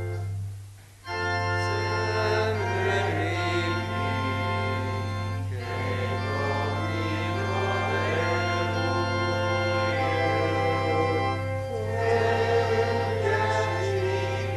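Church organ playing a hymn, with a short break about a second in. Then the organ leads and a congregation sings along with it.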